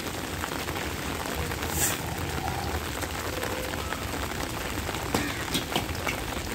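Steady rain falling on a wet, puddled tiled terrace, with a few short sharp ticks of drops or knocks.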